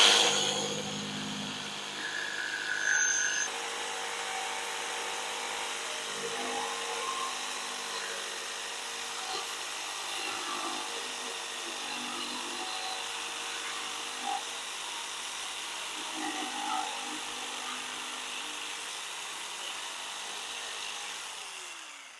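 Corded jigsaw cutting a curve through a wooden board, its motor running steadily as the blade saws through the wood. Near the end the motor is switched off and winds down with a falling pitch as the cut is finished.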